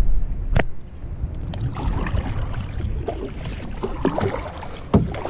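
Wind rumbling on the microphone over light handling and water noise, with two sharp knocks, one about half a second in and one near the end.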